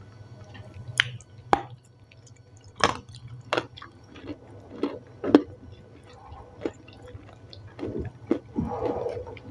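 Close-miked chewing of crunchy salad: irregular crisp crunches and wet mouth clicks, a few to the second.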